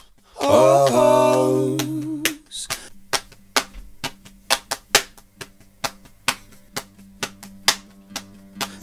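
A cappella music: a voice sings a short phrase, then a run of sharp snaps keeps time, a little over two a second, over a faint low steady tone.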